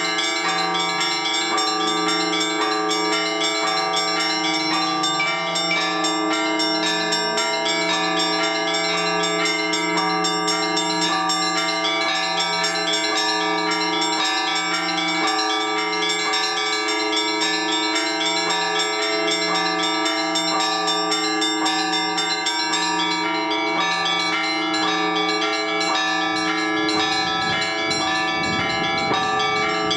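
Orthodox church bells rung together by a bell-ringer in a continuous, dense peal, the smaller bells struck over the steady hum of the large bells. The ringing calls the faithful to the all-night vigil.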